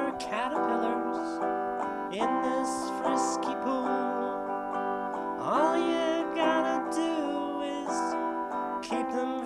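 Instrumental break of a song led by strummed and plucked acoustic guitar. Several notes slide up in pitch, about a third of a second in, about two seconds in and about five and a half seconds in.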